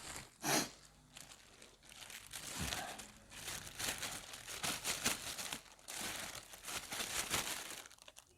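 Crinkly wrapping being pulled open and crumpled by hand, a dense irregular crackling with some tearing.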